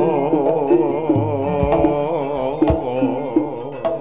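Jaranan ensemble music: a wavering melody line with heavy vibrato held over drum strokes and struck metallophone notes. The melody line stops just before the end.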